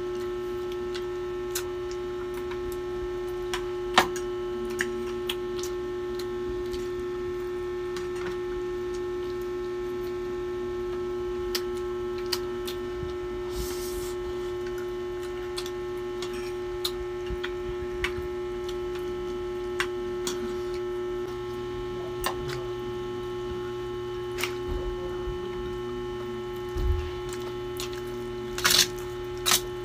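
Steady electrical hum with one strong low tone and many evenly spaced overtones, over scattered sharp clicks of forks and spoons against plates, a few louder clatters near the end.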